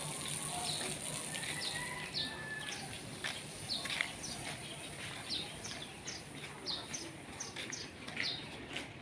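A small bird chirping over and over: short, high, falling chirps about twice a second, over a steady high hiss.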